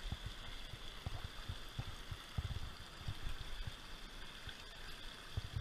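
Fast-flowing rocky creek rushing over stones, a steady hiss of moving water, with irregular low thumps under it.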